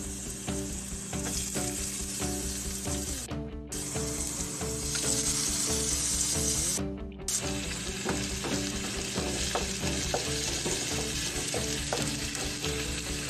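Minced garlic and then shrimp frying in hot oil in a nonstick pan: a steady sizzle that drops out for a moment twice.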